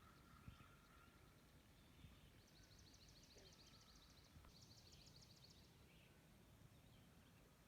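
Faint outdoor ambience with distant birdsong: two rapid high-pitched trills of quick repeated notes in the middle, over a low rumble.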